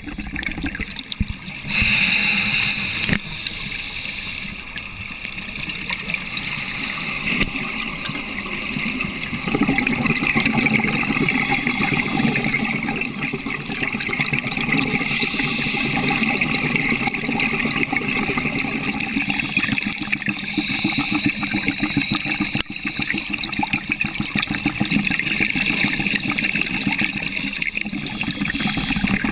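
Underwater sound through a camera housing: a steady watery hiss, with a scuba diver's exhaled bubbles rushing past every few seconds.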